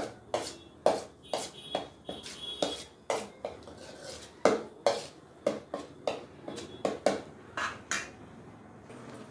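Steel spoon scraping and clinking against a stainless steel kadai while stirring a thick cooking paste, about two strokes a second, stopping about a second before the end.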